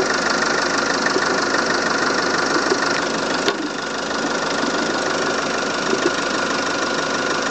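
Volvo S40 engine idling with a noise from the coolant expansion tank: a steady high tone over a rushing sound, briefly dipping about three and a half seconds in. The uploader's tags link it to a head gasket or cylinder head fault.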